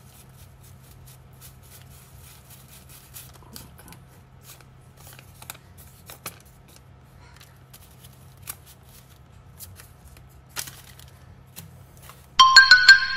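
Faint crinkling and rustling of paper banknotes being handled and leafed through, over a steady low hum. Near the end a loud, bright chiming jingle of quick notes cuts in.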